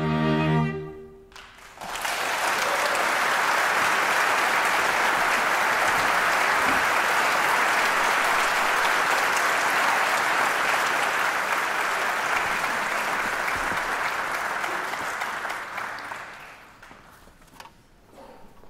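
A string quartet's last chord rings and stops about a second in. After a brief hush, an audience applauds steadily, fading out near the end.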